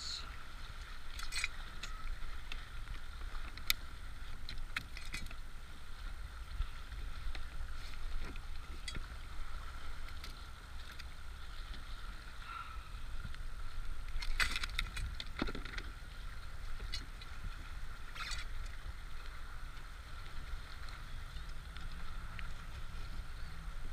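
Steady low rumble of wind and water around a kayak, with a few short clicks and knocks scattered through from handling the catch, pliers and measuring board.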